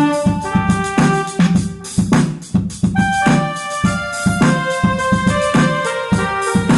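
Casio electronic keyboard playing a sustained organ-like melody over its built-in drum rhythm, with a steady beat throughout.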